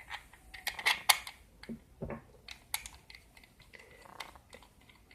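Parts of a GoPro car mount being handled and fitted together: a scattering of sharp clicks and light knocks, loudest about a second in.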